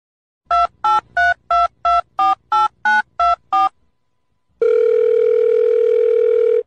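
Telephone touch-tone keypad dialing: about ten short two-note beeps, roughly three a second, as a number is keyed in. A second or so later a single steady tone sounds for about two seconds and then cuts off.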